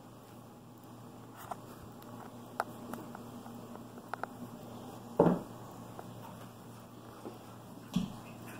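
Quiet room with a few faint taps and clicks from a kitten moving about on a wooden cabinet top, then a short thump about five seconds in as the kitten jumps down.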